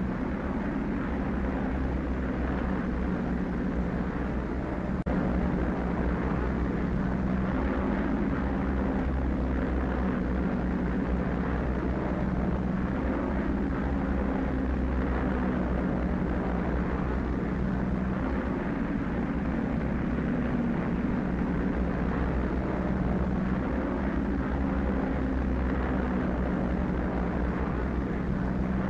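Vickers Wellington bomber's twin propeller engines droning steadily in cruising flight, a little louder from about five seconds in.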